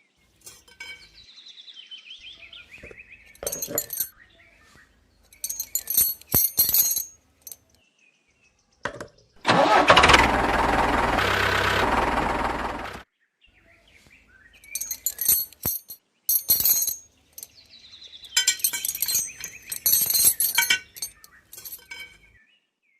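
A run of short handling sounds: clicks and clinks of small parts. About ten seconds in, a small electric motor runs steadily for about three seconds and then cuts off.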